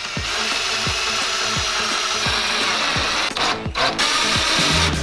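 Cordless drill driving a long screw into a plywood block, running steadily for about three seconds, stopping briefly, then running again near the end.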